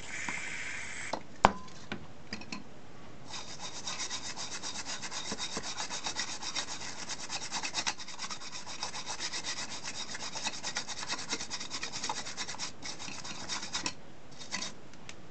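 Aerosol flux remover hissing onto a circuit board for about a second, then a single click. After that a brush scrubs the soldered side of the board in rapid strokes for about ten seconds, washing off flux residue.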